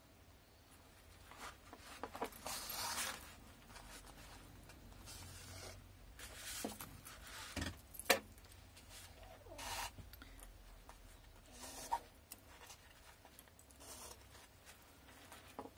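Thread being pulled through fabric by hand as a buttonhole stitch is sewn: faint short swishes and cloth rustles as each stitch is drawn tight, with a sharper tap about eight seconds in.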